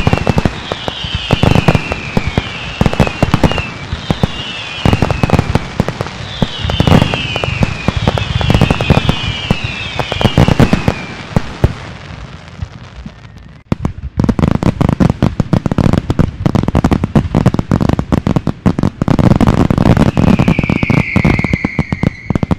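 Large aerial fireworks display: dense, rapid bangs and crackling from bursting shells, with a string of short falling whistles through the first half and another near the end. The bangs thin out briefly a little past halfway, then come back just as dense.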